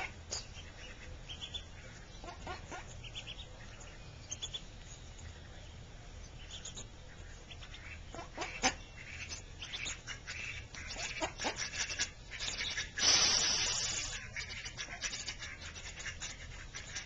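Mallard ducklings peeping in short high notes and pecking at a pile of grain on a mat, with a short noisy burst about thirteen seconds in.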